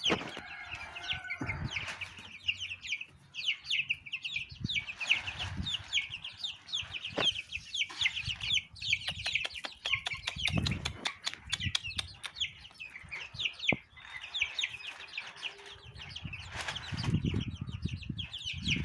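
Chicken chicks cheeping nonstop, a dense stream of short, high, falling peeps from several birds at once. A quick run of sharp clicks comes about eight to ten seconds in.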